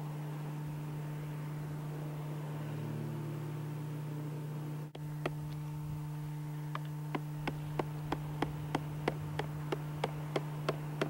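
Hammer striking the top of a sign stake to drive it into the ground: sharp knocks about three a second, starting about five seconds in and becoming steady and even. A steady hum runs underneath.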